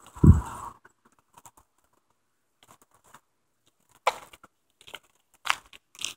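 Footsteps in sneakers on an asphalt road, a few short scuffs. The loudest sound is a heavy bump of handling noise on the phone's microphone just after the start.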